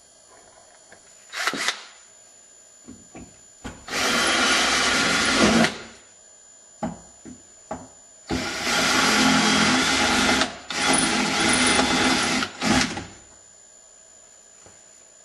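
Power drill with a 5/16 inch bit drilling out the two rivets that hold a power door lock actuator inside a truck door. It runs in several bursts of one to two seconds with short pauses and clicks between.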